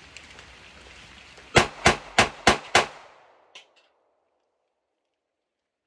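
Five quick 9mm pistol shots in a rapid string, about three a second, each with a short ring after it. Two faint clicks follow.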